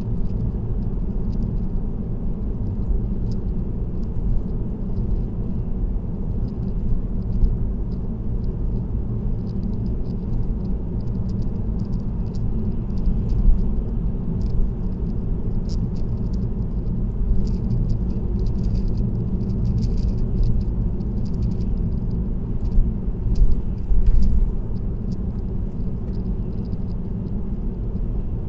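Steady low road and tyre rumble of a car cruising on an expressway, with scattered small rattling ticks, most frequent in the second half.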